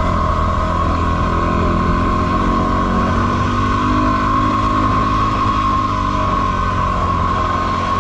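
Yamaha WR250R dual-sport motorcycle's 250 cc single-cylinder four-stroke engine running at a steady pace on a dirt track, with a steady high whine and wind and tyre noise on the bike-mounted camera.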